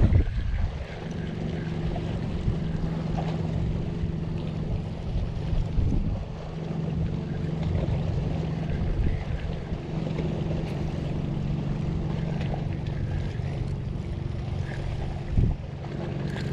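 Spinning reel being cranked on the retrieve: a steady low gear hum that stops and starts a few times as the winding pauses, with wind noise on the microphone.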